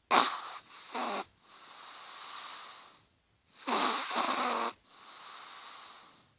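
Chihuahua snoring, two snores in a row. Each is a loud, short burst of breath followed by a quieter, longer breath.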